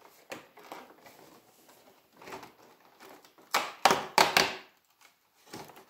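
Handling of an advent calendar's packaging as the day-4 compartment is opened: a few light clicks and rustles, then a loud burst of rustling and tearing about three and a half seconds in that lasts about a second.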